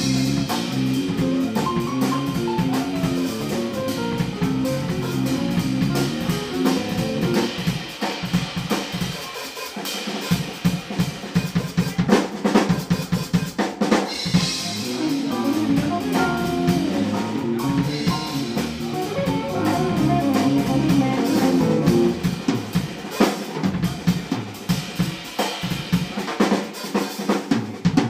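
A live jazz-rock band plays: a drum kit with snare, bass drum and cymbals, electric bass, electric guitar and keyboard. The drums are up front under running melodic lines, which thin out for a few seconds in the middle where the drum strokes stand out.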